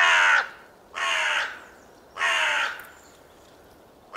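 A crow cawing, three caws about a second apart and each about half a second long, with a fourth caw starting at the very end.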